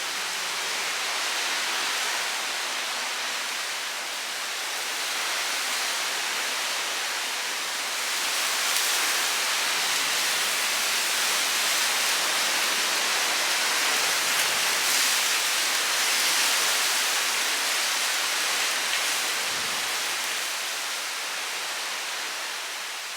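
Tropical-storm rain and wind, a steady hiss that swells about a third of the way in and eases off near the end.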